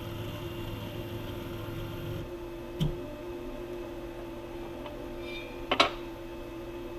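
6040 CNC router's stepper motors humming steadily while the Z axis probes down to a touch plate; a low drone stops about two seconds in, then two sharp clicks follow, one near the middle and one near the end.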